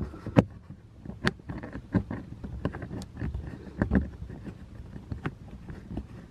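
Irregular clicks and knocks of a screw being worked in by hand on a car dash speaker mount, with fingers and plastic parts tapping and scraping.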